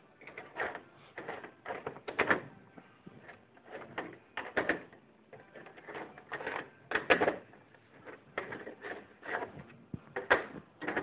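Handling clatter from black plastic parts and metal rods being fitted together and set down on a table: irregular clicks and knocks, one or two a second.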